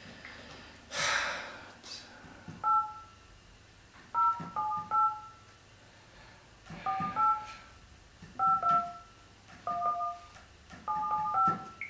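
Touch-tone telephone keypad dialing: about a dozen short two-tone beeps in quick groups of two or three as a number is keyed in on a corded landline phone.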